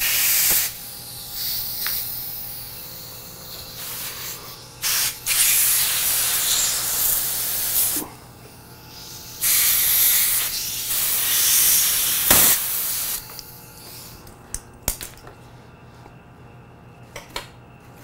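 Compressed air hissing from an air nozzle in several bursts over most of the time, blown under a new handlebar grip to work it further onto the throttle tube. Near the end come a few light clicks.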